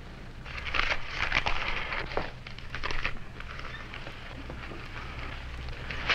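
Scuffling and rustling of clothing as a man struggles against two men gripping his arms, loudest around the first and third seconds, over a steady low hum.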